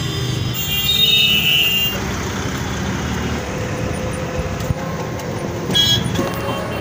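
Ride inside a three-wheeled auto-rickshaw in town traffic: steady engine and road rumble, with a short high-pitched tone from traffic about a second in and another brief one near the end.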